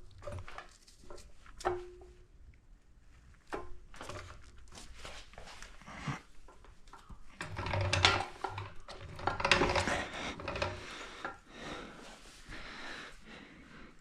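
Scattered metal clicks and clinks of hand tools and bolts being worked on a scooter's front end, a couple of them ringing briefly. The clatter is busier around the middle.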